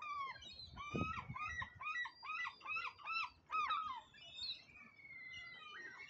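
Gulls calling: a rapid series of about ten loud, arched yelping notes, roughly three a second, followed near the end by one long, thin, steady whistle.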